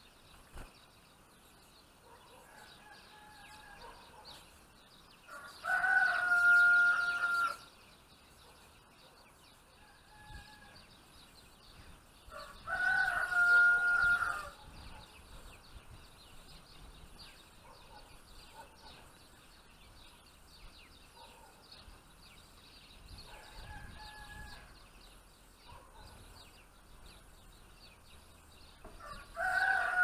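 A rooster crowing three times, each crow about two seconds long and ending in a held note, with fainter crowing between them. Faint small-bird chirps run underneath.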